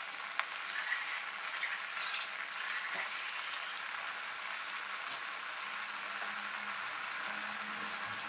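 Bread-and-spinach vadas sizzling as they fry in hot oil over a high gas flame: a steady hiss with scattered pops and crackles.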